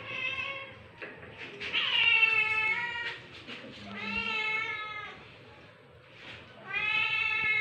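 Domestic cat meowing four times in long, high, drawn-out calls, the second the loudest and longest at over a second.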